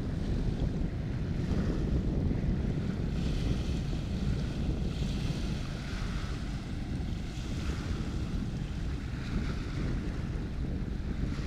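Wind buffeting the microphone in a steady low rush, with waves washing faintly in the background.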